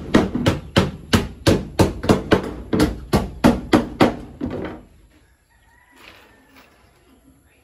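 Hammer driving nails into a plywood floor laid on wooden joists: a steady run of about a dozen blows, roughly three a second, that stops about four and a half seconds in. A rooster crows faintly about six seconds in.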